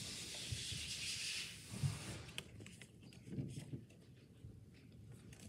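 Pokémon trading cards being handled: a soft sliding rustle for about the first two seconds, then a few soft taps and shuffles as cards are gathered into a stack.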